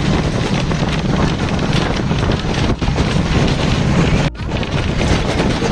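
Wind buffeting the microphone from a moving bus, over the bus's running noise, with a brief break a little past four seconds in.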